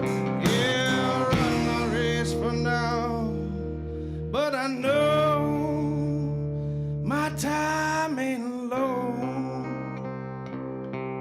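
Blues band playing: slide guitar notes sliding and bending over held guitar chords.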